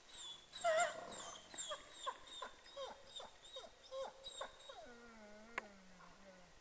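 Wolves whimpering and yipping: a rapid run of short squealing calls that fall in pitch, the loudest about a second in, then a lower wavering whine drawn out over the last second and a half. A single sharp click sounds just past the middle.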